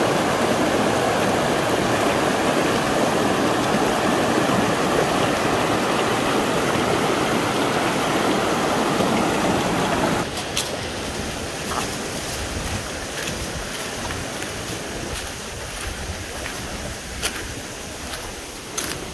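Rocky mountain stream rushing over boulders in a steady, loud rush of water. About ten seconds in, the sound drops to a quieter flow, with a few light knocks scattered through the rest.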